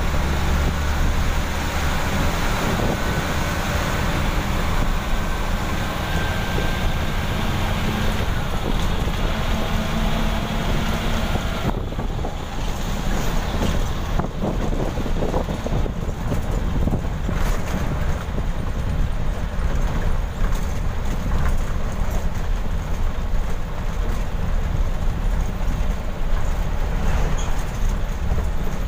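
Engine rumble with road and wind noise inside the driver's cab of a moving bus. The rushing hiss drops away suddenly about twelve seconds in, leaving the low rumble.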